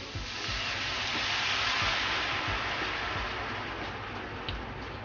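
White wine sizzling as it is poured into a hot frying pan of sausage meat and broccoli. The hiss swells over the first two seconds and then slowly dies down as the wine starts to boil off.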